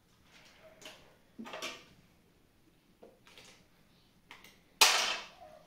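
Raw meat being handled and washed by hand in a metal basin: a series of short wet splashing and squelching noises. The loudest comes about five seconds in.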